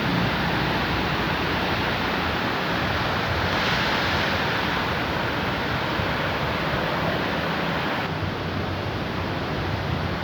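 Heavy rain pouring down steadily in a summer thunderstorm downpour, swelling a little about four seconds in.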